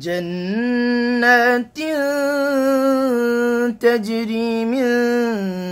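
A man's voice reciting the Quran in melodic tajweed, drawing out long held notes with ornamented turns. There are three sustained phrases with brief pauses between them, and the first note steps up in pitch about half a second in.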